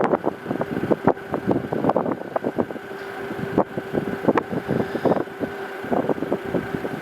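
Moderate wind buffeting the microphone in irregular rapid gusts and flaps, over a steady low hum.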